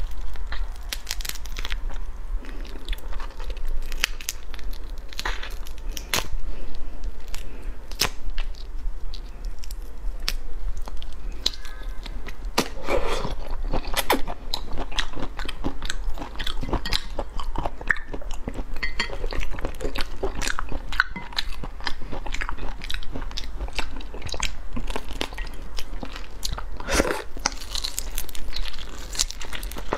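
A person biting into and chewing a whole prawn in sauce, with irregular crunches of shell mixed with sucking and chewing.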